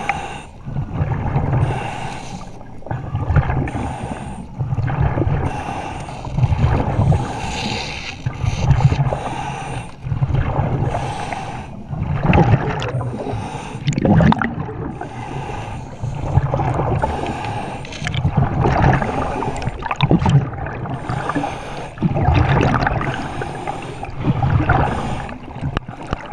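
Underwater sound heard through a submerged camera in murky lake water: a rhythmic rumbling swish about every second or so, with bubbling and hiss over it.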